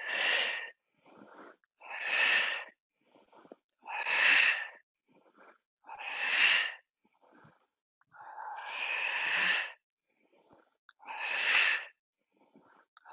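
A yoga instructor's forceful, audible exhales, one about every two seconds, each a short rushing hiss, with faint inhales between; one breath near the middle is longer. The breaths are paced to repeated elbow-to-knee crunches held in side plank.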